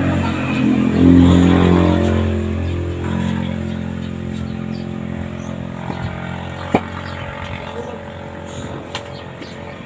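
A motor vehicle engine running steadily, loudest about a second in and then gradually fading, with a single sharp click near the end.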